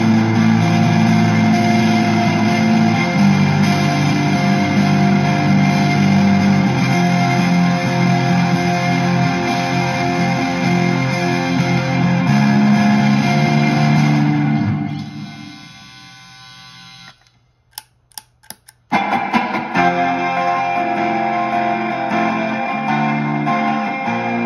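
Electric guitar (Squier Affinity Jazzmaster) played through a reverb pedal into a distortion pedal, a dense, sustained shoegaze wall of noise with held chords. About fifteen seconds in it fades to near silence, broken by a few sharp clicks, then the guitar comes back abruptly about nineteen seconds in with the overdrive pedal now on.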